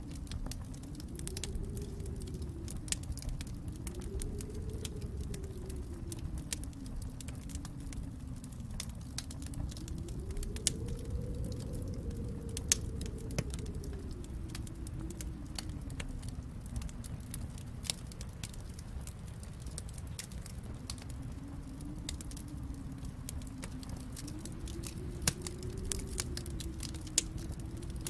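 Wood fire crackling, with scattered sharp pops over a steady low rumble. A low howling tone slowly rises and falls behind it.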